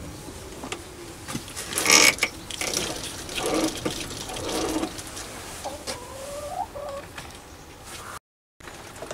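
Metal clicks, knocks and a short rattle of a stopped mini lathe being handled while a drill is set up to bore a brass handle, the chuck turned round by hand. Short squeaks near the end.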